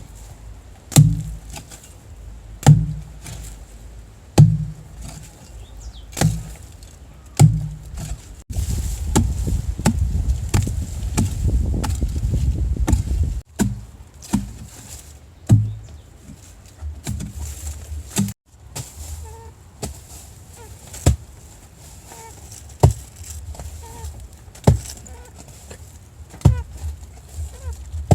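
Repeated chopping blows, one every second and a half to two seconds, each a sharp knock with a low thump. The blows give way to a denser, continuous scraping or rustling stretch of about five seconds in the middle, then resume at the same pace.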